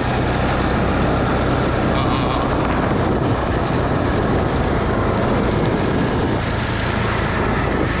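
Arctic Cat ATV engine running steadily under way along a trail, with wind and tyre noise mixed in.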